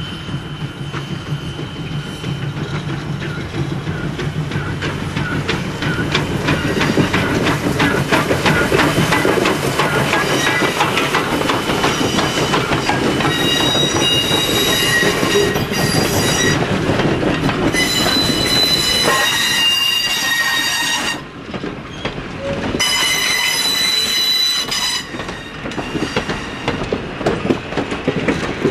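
Steam locomotive No. 65, a 1930 Porter 0-6-0, approaches and passes with its train, its exhaust beats and running noise growing louder over the first several seconds. As the coaches roll by on the curve, the wheels clack and high-pitched squealing tones ring out on and off.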